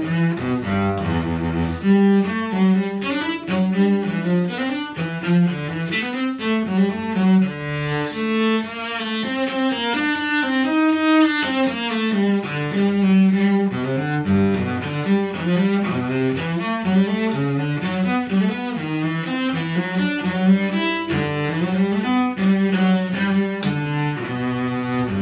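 Solo cello played with the bow: a quick, flowing passage of many short notes that run on without pause.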